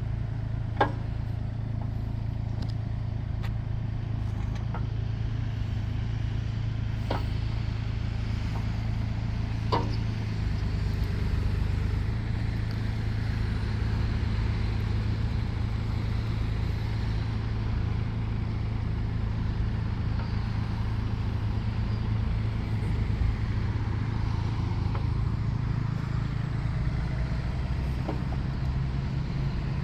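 Hyundai Robex35Z-9 excavator's diesel engine running steadily, a little louder from about a third of the way in, with a few sharp knocks in the first ten seconds.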